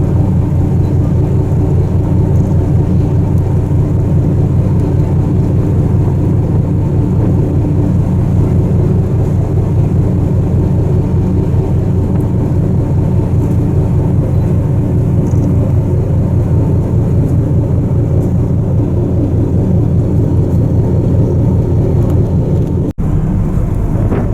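Icebreaker's diesel engines running steadily: a deep, even drone with a fast low throb. The sound drops out for an instant near the end.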